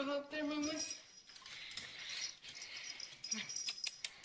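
A small dog whining: a high, drawn-out whimper in two connected cries during the first second, then fainter scuffling noise with a few clicks near the end.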